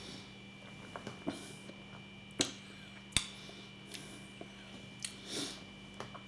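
A few scattered sharp clicks and soft knocks, the loudest two about two and a half and three seconds in, with a short soft rustle near the end, over a steady electrical hum.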